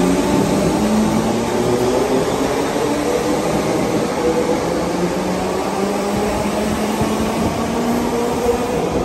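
Merseyrail Class 508 electric multiple unit pulling away from the platform, its traction motors whining steadily over the running of the wheels. The whine holds several tones that rise slowly as the train gathers speed.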